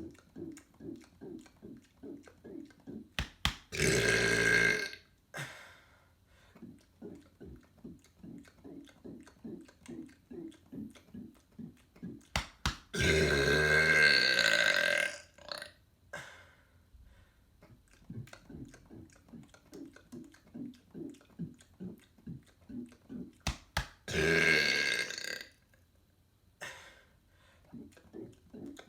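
A man burping loudly three times: a burp of about a second, a longer one of about two and a half seconds, then one of about a second and a half. Between the burps, short soft sounds repeat about three times a second.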